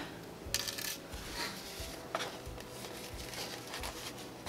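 Paper and sticker sheets being handled and shuffled by hand: a short rustle about half a second in, then a few fainter rustles.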